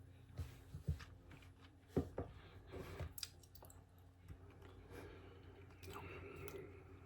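Faint mouth sounds of a person sipping and tasting bourbon: several short wet clicks and smacks in the first few seconds, the loudest about two seconds in, then softer mouth noise near the end.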